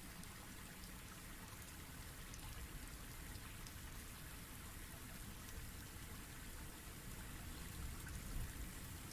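Faint, steady background hiss with a low rumble, with no distinct events.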